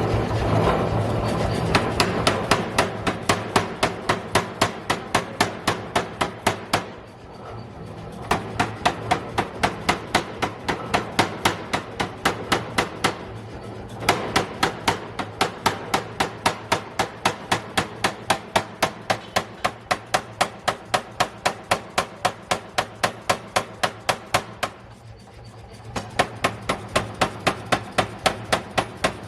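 40 kg pneumatic forging air hammer striking in a fast, even succession of about three to four blows a second, with two short pauses, over the steady hum of the machine running.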